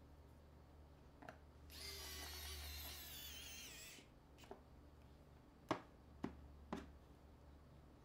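Small tools working on an HTC U Ultra smartphone during a teardown: a high, wavering whir for about two seconds, then a few sharp clicks of the tool against the phone.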